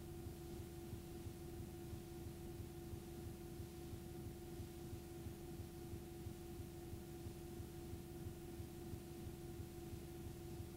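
Faint steady hum and hiss from a blank, unrecorded stretch of videotape, with one held pitch running under it and no change throughout.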